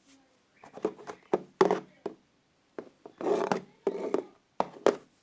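Hands squeezing and pressing slime: a series of about five short squishing bursts with sharp clicks and pops between them.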